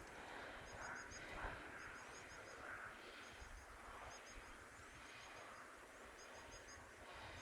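Faint small-bird chirps: quick groups of three or four short, high notes, repeating about once a second over quiet forest ambience.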